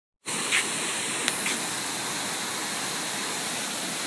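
Steady rush of a tall waterfall plunging into a pool, cutting in abruptly after a moment of silence.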